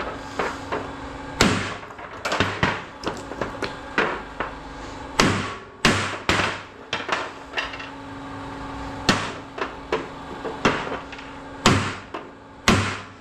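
Hammer striking scrap metal in a run of irregular blows, about one or two a second, over a faint steady hum.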